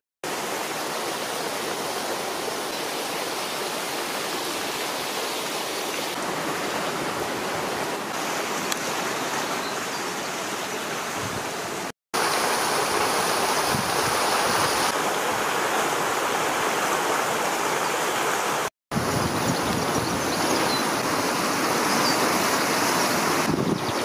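Steady rush of fast-flowing hot-spring water, with a stream running over rocks. The sound cuts out for an instant twice, about halfway and about three-quarters through, and is a little louder after the first break.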